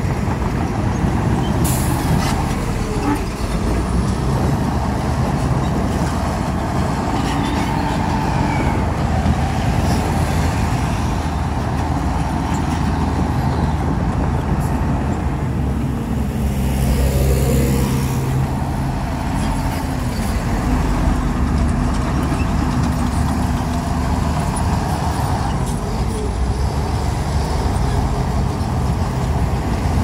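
Heavy diesel engines of a crawler bulldozer and a dump truck running steadily under load, with a slow rise and fall in engine pitch partway through as the truck manoeuvres.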